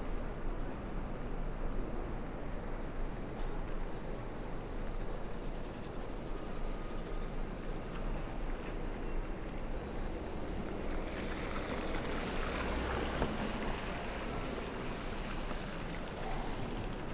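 Steady city street traffic noise with a low hum. About two-thirds of the way in it swells into a louder, hissier rush, as of a large vehicle passing close.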